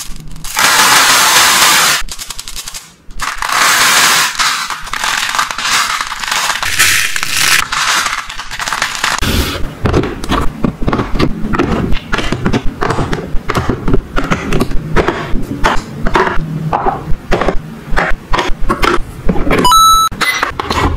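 Small plastic beads poured out of cups into a plastic toy bathtub, twice: a loud hissing rattle, then a longer one. After that come many sharp clicks and clacks of plastic toy kitchen pieces being fitted and set down, with a short high tone near the end.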